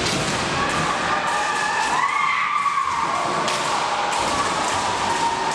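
Women kendo fencers shouting kiai: long, high yells, one held about two seconds in that rises and then falls, over thumps and knocks of stamping feet and bamboo shinai.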